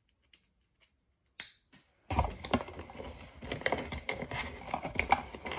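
A bracelet's buckle snapping with one sharp click about a second and a half in, followed by a fainter click. Then close rustling with many small clicks as the bracelet and other small items are handled.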